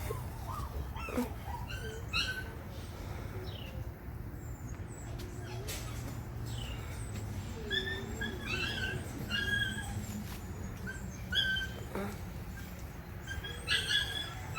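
Puppy whimpering in short, high-pitched whines, repeated several times mostly in the second half, over a steady low hum.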